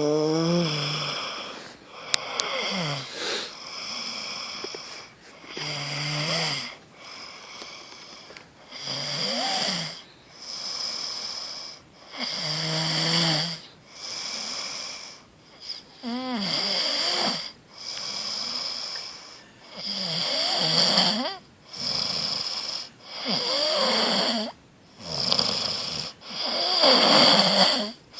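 A sleeping person snoring loudly, one rattling snore about every three to four seconds, each with a high whistling edge.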